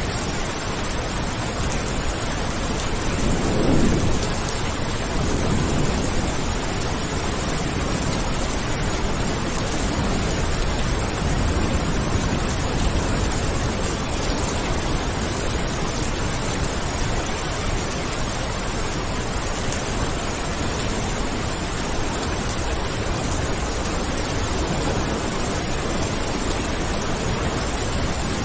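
Steady heavy rain hissing, with a low roll of thunder swelling about four seconds in and fainter rumbles after.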